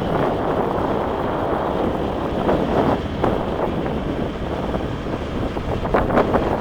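Strong wind buffeting the microphone: a steady, dense rush with a few sharper gusts about six seconds in.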